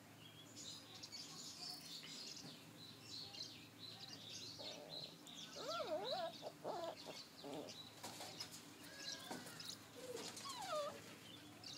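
Faint chirping of small birds runs throughout. Playing puppies give a few short whining yelps, rising and falling in pitch, about halfway through and again near the end.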